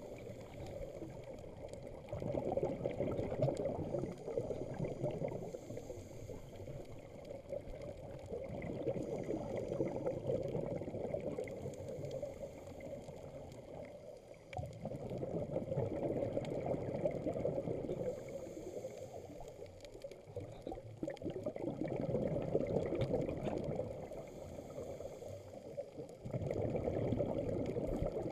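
Muffled rush of moving water heard underwater, swelling and fading every five or six seconds.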